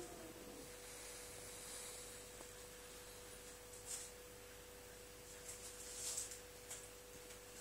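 A steady faint tone throughout, with a few faint crinkles about four and six seconds in as a cat eats from crumpled aluminium foil.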